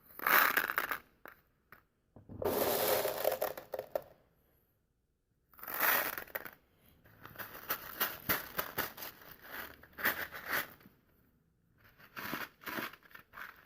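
A paper cup crinkling as it is handled and squeezed, with small plastic airsoft BBs clicking as they are loaded through it into a sock. It comes in several separate bursts with short gaps, the longest a run of many quick clicks in the middle.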